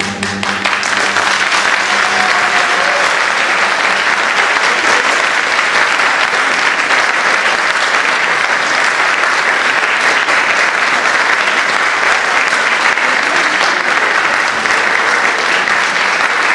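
Audience applauding: many people clapping together, building up over the first second and then holding steady and loud.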